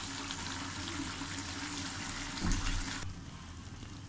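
Pot of chicken broth boiling on the stove, a steady bubbling hiss that cuts off suddenly about three seconds in, with a low thump shortly before.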